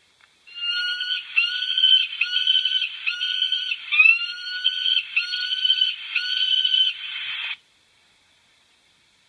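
A bird calling: a run of about a dozen evenly spaced, slightly rising call notes, each about half a second long, stopping about seven and a half seconds in.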